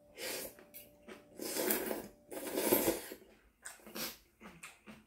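A person slurping kalguksu noodles from a bowl of hot broth: noisy sucking slurps, the two longest and loudest about one and a half and two and a half seconds in, followed by shorter, fainter ones.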